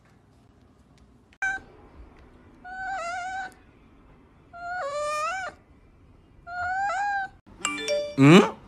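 A cat meowing three times, each call about a second long, dipping and then rising in pitch. Near the end a short burst of music with stepped tones starts.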